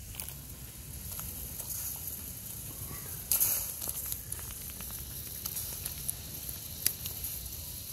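Broth bubbling in a metal wok over an open wood fire: a steady hiss with scattered small crackles, and one louder hiss about three seconds in.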